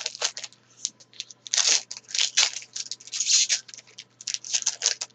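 A trading card pack's wrapper being torn open and crinkled in the hands, a rapid, uneven crackling and rustling.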